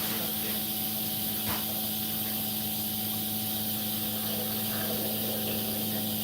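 Whirlpool WFO3P33DLXUK dishwasher mid-cycle on a 65°C full wash: the circulation pump hums steadily while water sprays inside the tub. A faint knock comes about one and a half seconds in.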